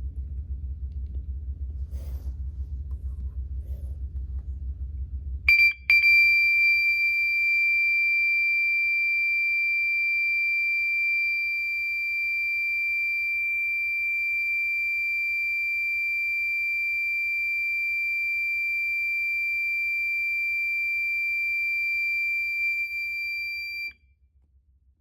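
System Sensor MA/SS-24D horn sounding its 2400 Hz continuous tone: one high, unbroken, piercing tone that starts with a brief stutter about five seconds in and cuts off suddenly near the end. A low hum comes before it.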